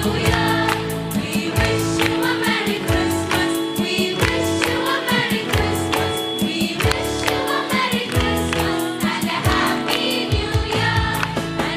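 Choir singing a Christmas carol with a live band: held keyboard and bass notes under a steady drum beat.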